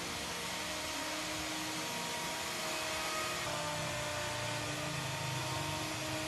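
Handheld electric router running at full speed, its spinning bit cutting into the wooden cutting board. The noise is steady, with no pauses.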